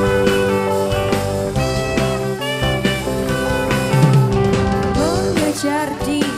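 Live rock band playing through a stage PA: drum kit, electric guitars, keyboard and saxophone, with long held notes and a few sliding notes near the end.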